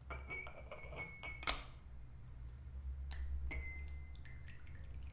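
White porcelain tea-tasting cups and lids clinking against their bowls as the steeped tea is tipped out: a run of light clinks in the first second and a half, one ringing briefly, and another ringing clink about three and a half seconds in.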